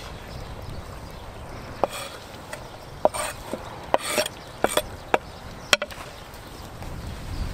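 Large kitchen knife scraping and tapping on a wooden cutting board, pushing chopped peppers off into a cauldron: a string of sharp wooden clicks and short scrapes over the middle few seconds.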